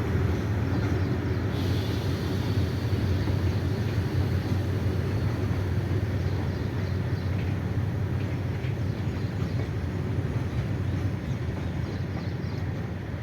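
Goods train wagons rolling past on the track, a steady low rumble that eases slowly toward the end. A faint high-pitched hiss in the first second or so.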